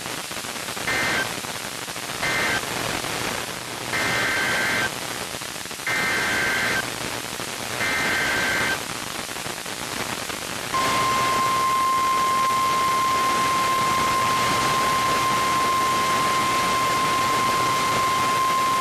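NOAA Weather Radio Emergency Alert System tones over a steady radio hiss. First come three short warbling data bursts that close the previous message, then three longer SAME header bursts about two seconds apart. About eleven seconds in, the steady 1050 Hz warning alarm tone starts and holds; it precedes a tornado warning.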